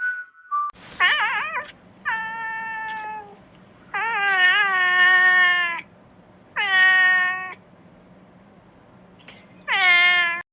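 A cat meowing loudly five times in long, drawn-out calls, the first with a wavering pitch and the middle one the longest.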